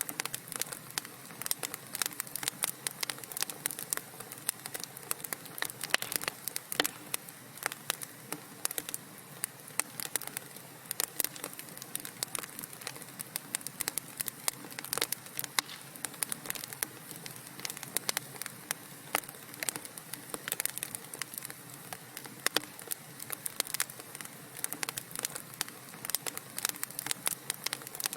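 Wood fire crackling in a fireplace: a continuous stream of irregular sharp pops and snaps over a soft steady hiss of burning.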